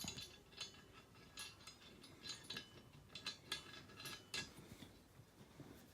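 Faint scattered metal clicks and clinks as a lock washer and nut are fitted onto a bolt of a steel engine stand.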